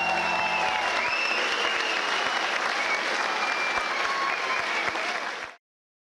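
Audience applauding at the end of a folk dance performance. The band's last held chord dies away about a second in, and the sound cuts off suddenly near the end.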